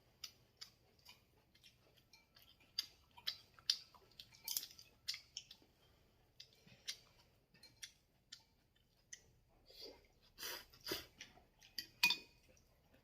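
Someone eating: irregular chewing with many small crisp clicks and crunches, a few louder ones near the end.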